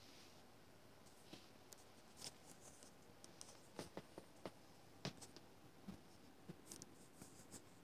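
Near silence in a small room, broken by faint scattered scratches and light clicks, loudest a little after the middle.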